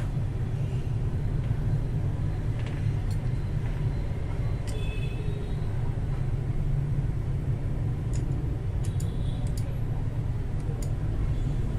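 Steady low background rumble, with a few faint light clicks scattered through it and a brief faint high tone about five seconds in.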